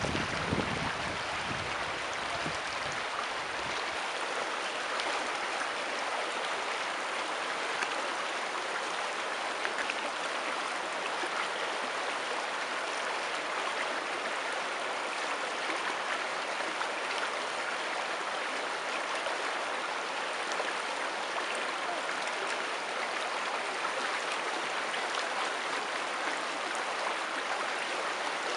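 A river flowing steadily over rocks, a continuous rushing and babbling of water. A low rumble underneath fades out within the first few seconds.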